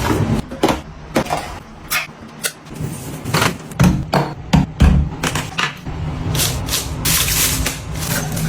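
Hard household items being handled and set down: a run of irregular knocks, clicks and taps, with some rubbing, over a steady low hum.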